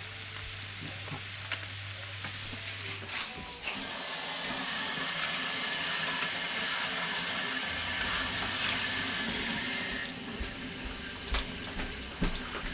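Kitchen faucet running water into a stainless steel sink, filling a measuring cup: the flow comes on about three and a half seconds in as a steady rush and drops back to a thin trickle about ten seconds in. A low hum is heard before the water starts.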